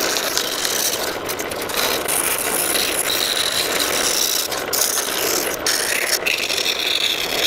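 Scroll saw running steadily with a strip of sandpaper mounted in place of the blade. The strip moves up and down and rubs against the wood as it sands inside the narrow slots of a small cutout.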